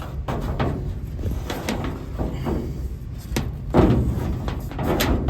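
A run of irregular knocks and clunks, as of doors, panels or other hard objects being handled, with the loudest one a little under four seconds in.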